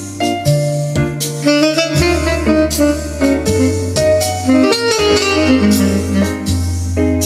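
Instrumental music played back through a McIntosh MC2500 power amplifier and C24 preamplifier, with sustained melodic notes over a steady bass line.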